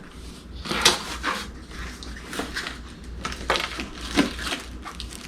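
Cardboard box packaging being opened and handled: a string of short, irregular scuffs and crinkles, the loudest about a second in and again near four seconds.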